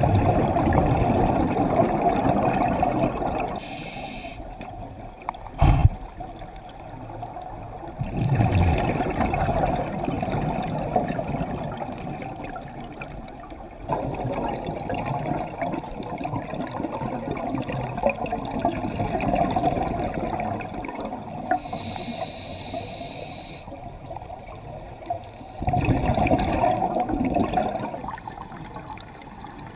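Scuba diver breathing through a regulator underwater: several long bubbling exhalations, with short hissing inhalations between them. A sharp knock sounds about six seconds in.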